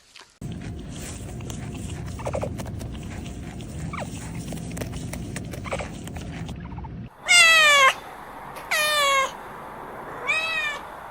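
A cat meowing three times, each meow a clear call that drops in pitch at the end, over a steady background rumble that runs until the meows begin.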